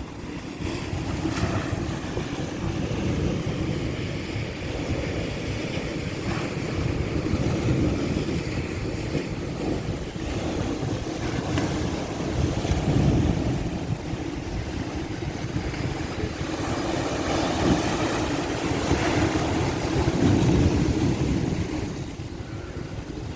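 Ocean surf breaking and washing up a beach: a continuous rush with a heavy low rumble, swelling and easing every few seconds.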